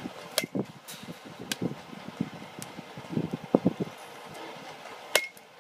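A few sharp knocks over an uneven low rumble, the loudest about five seconds in with a short metallic ring.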